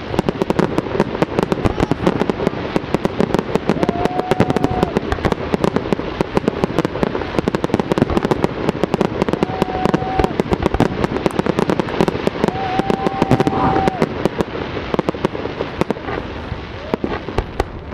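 Distant fireworks going off in a dense barrage: many sharp bangs and cracks every second, overlapping without a break.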